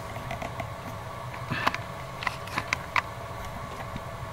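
Steady electrical hum and hiss of bench electronics, with a cluster of light clicks and taps from handling in the middle.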